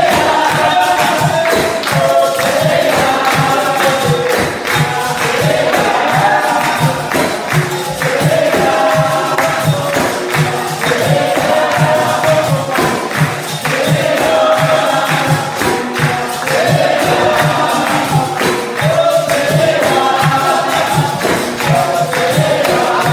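Capoeira roda music: berimbaus, pandeiros and an atabaque drum keep a steady driving rhythm while the circle sings together in repeating phrases, with hand clapping.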